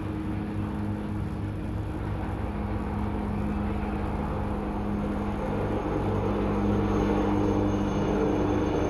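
Fish steaks frying in oil in a nonstick pan, a steady sizzle over a low steady hum, growing gradually louder.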